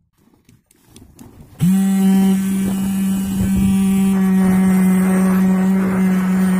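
Small DC motor of a homemade electric knife sharpener switched on about a second and a half in, spinning its sharpening wheel with a steady hum. A knife blade held against the wheel adds a scratchy grinding over the hum.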